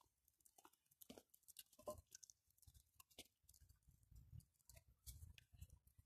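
Near silence, with faint scattered clicks and taps.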